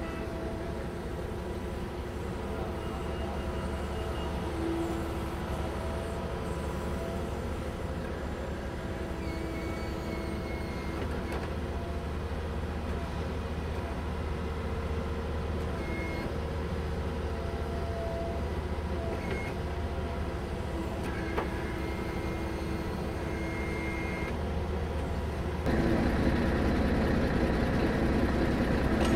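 A Bobcat mini-excavator's diesel engine runs steadily as the machine digs, with a pitched tone that comes and goes as the boom and tiltrotator attachment work. The sound gets louder near the end.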